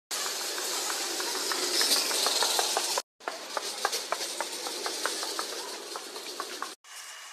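Metal shopping trolley pushed quickly across a smooth concrete floor, its wheels and wire basket rattling, with many quick clicks over a steady rushing noise. The sound breaks off briefly about three seconds in.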